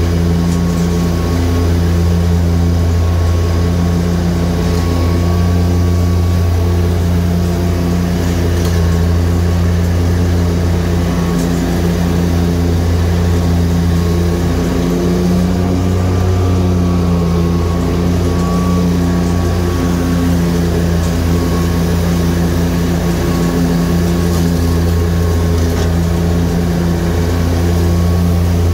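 Dixie Chopper Classic 3372 zero-turn mower's 33-horsepower Generac engine running steadily while mowing, with the 72-inch deck's blades engaged. It is a steady, even hum at a constant pitch.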